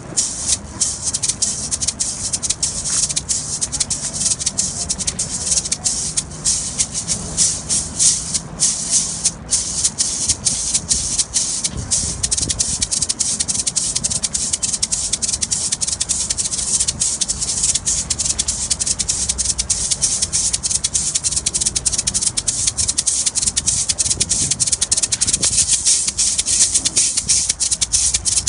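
A pair of Caribbean Colombian maracas shaken in a fast, unbroken rhythm: a dense stream of crisp, high rattling strokes.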